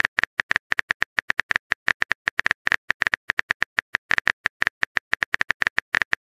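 Phone keyboard typing sound effect: a fast, uneven run of short clicking taps, about ten a second.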